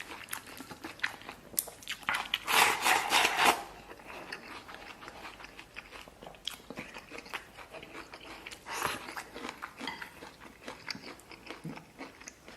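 Close-miked eating: chewing and biting into chili stir-fried pig intestines and rice, a run of short wet, crunchy chews. A louder, denser stretch of eating noise comes about two seconds in and lasts about a second.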